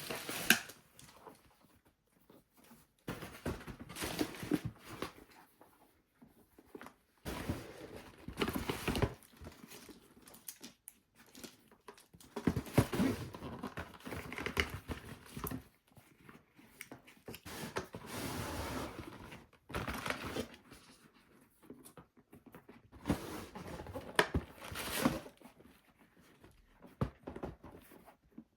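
Packaging being handled during the unboxing of football boots: paper and cardboard crinkling and tearing in irregular bursts, with occasional knocks in between.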